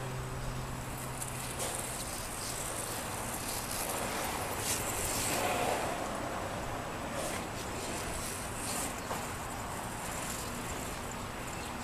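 Skateboard wheels rolling over asphalt through carving turns, growing louder as the board passes close about halfway through, then fading.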